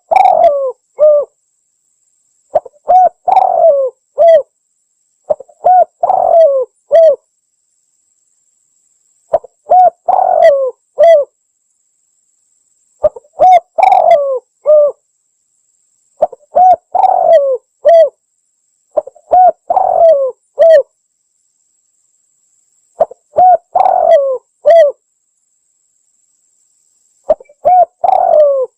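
Spotted dove (tekukur) cooing: a recorded call phrase of several short coo notes, repeated about nine times, roughly every three seconds, with silence between.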